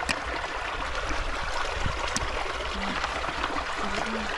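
Water trickling steadily through a muddy field, with a few sharp clicks.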